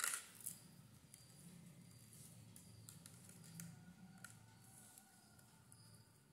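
Faint small clicks of beads being handled and threaded onto wire, the sharpest couple right at the start and lighter ticks after, over a low steady hum.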